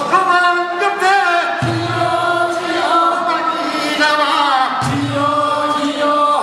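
Men singing a Korean traditional fishermen's work song, sung to the rowing of oars. Sung phrases alternate about every one and a half seconds between a fuller, lower group sound and higher, sliding phrases.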